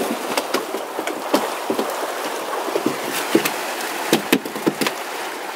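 Steady rush of fast river water around a turning fishwheel, with irregular sharp knocks on wood, two or three a second, from the wheel and from freshly caught chum salmon flopping in its wooden catch box.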